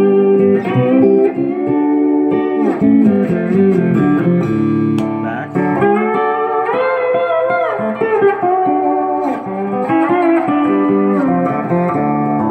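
Seven-string Melobar steel guitar played with a steel bar through an amplifier on a clean tone: sustained chords with the bar gliding up and down in pitch, most noticeably about halfway through.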